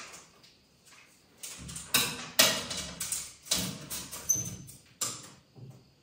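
A folding ruler clicking and scraping as its joints are swung open and it is set against the frame of an arched window. The sharp clicks come at irregular intervals from about a second and a half in, with a low rumble underneath.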